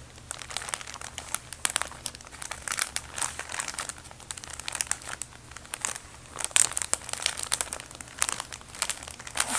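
A bag being crumpled and crinkled by hand close to the microphone, in irregular bursts of crackling. The loudest cluster comes about two-thirds of the way through.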